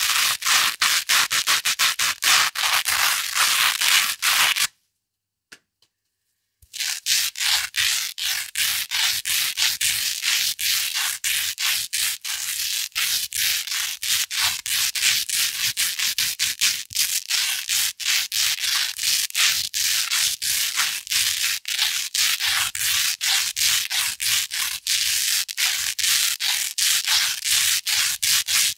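Velcro hook tape scratched back and forth against loop fabric close to the microphone, in fast, even strokes several times a second. About five seconds in it stops for a couple of seconds, then resumes with a thinner, higher-pitched scratch.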